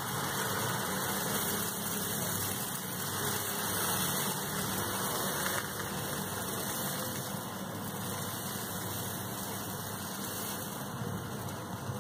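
Steady rushing hum of a kitchen as dosa batter is poured onto a hot cast-iron tawa and spread in circles with a steel ladle; no distinct sizzle, scrape or knock stands out.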